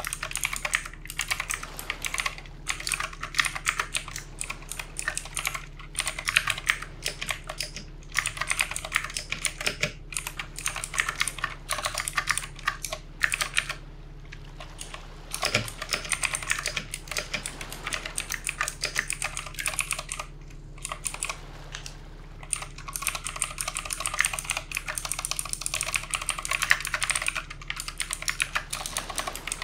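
Fast, continuous typing on a backlit mechanical keyboard: dense, irregular key clicks with a few brief pauses.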